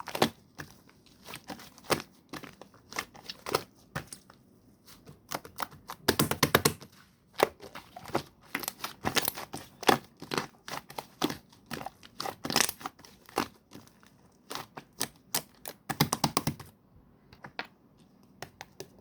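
Hands squishing and stretching slime with clay mixed into it: a run of sticky pops and crackles, thickening into two denser flurries about six and sixteen seconds in.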